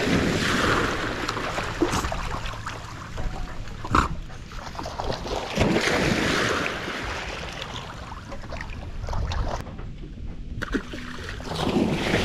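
Dogs bounding and splashing through shallow water: three surges of heavy splashing about six seconds apart, with lighter sloshing and one sharp slap of water between them.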